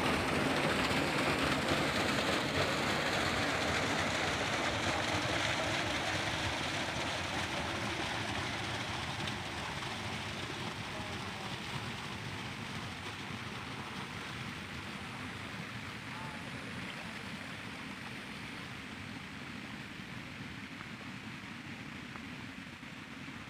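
Water rushing along a concrete irrigation channel, a steady rushing noise that slowly grows quieter.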